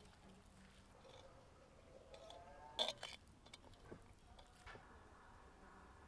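Spoon mixing chopped onion, minced meat and spices in a ceramic bowl: faint soft squishing, with a sharp click of the spoon against the bowl about three seconds in and a few lighter clicks after.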